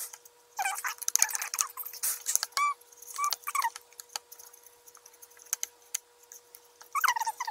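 Small plastic spoon stirring and scraping a candy-powder and water mix in a plastic Popin' Cookin' tray, in a few bursts of squeaking scrapes with light clicks, the last one about seven seconds in.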